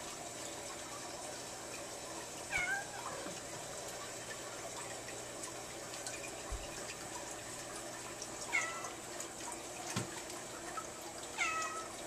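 A domestic cat meowing three times, short calls several seconds apart, over a faint steady background of running water.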